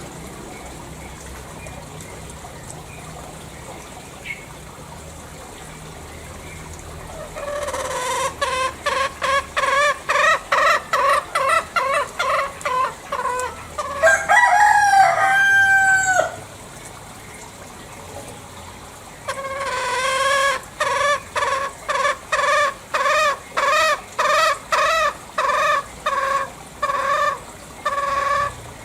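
Green junglefowl calling: a fast run of repeated, evenly spaced clucking notes starting about a quarter of the way in, then a single louder, shrill crow bending in pitch, and after a short pause the run of clucking notes starts again and carries on, about two notes a second.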